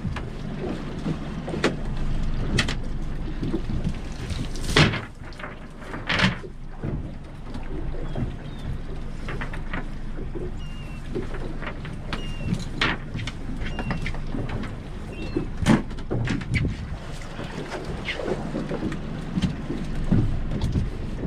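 Steady low hum of a boat idling on calm water, broken by several sharp knocks and splashes as a cast net with its lead weights is gathered and thrown for herring. Faint short bird calls come in a few times near the middle.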